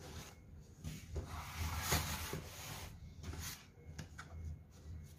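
Cardboard product boxes handled by hand: rubbing and sliding against each other and against the hands as one small box is picked up and turned over, with a louder scrape about two seconds in.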